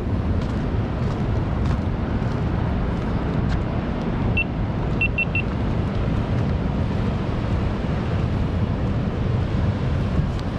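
Steady low outdoor rumble of wind on the microphone and surf, with four short high chirps a little over four seconds in.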